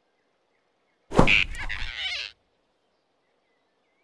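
One sudden thump-and-swish sound effect about a second in, lasting just over a second, as the big animated rabbit grabs the flying squirrel in his fist.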